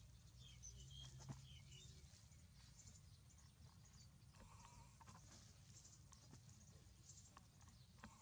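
Near silence, with a few faint, short high-pitched animal squeaks in the first two seconds and again about halfway, and scattered light clicks.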